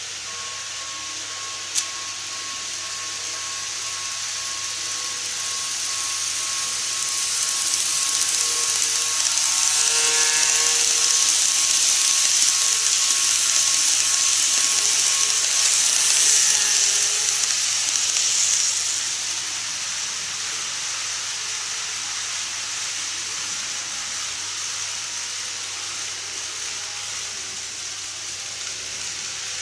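N-gauge KATO model train, a JR East suburban EMU on Unitrack, running past: a whirring rattle of small motor and wheels on rail that swells as it approaches, is loudest midway through as it passes, and eases off as it moves away. A single sharp click about two seconds in.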